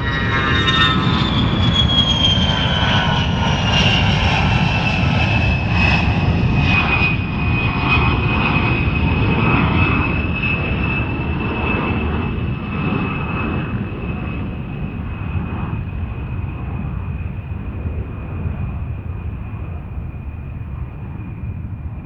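Airplane flying past: a loud rumble with a high whine that falls in pitch over the first few seconds and then holds steady, the whole sound slowly fading.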